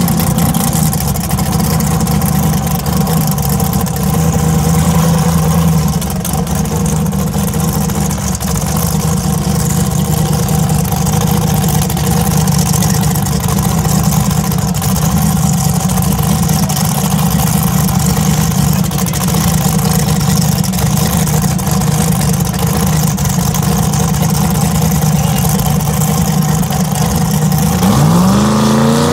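Steve Morris-built V8 of a drag-racing streetcar idling loudly and steadily through its open rear exhaust outlets; near the end the revs climb sharply.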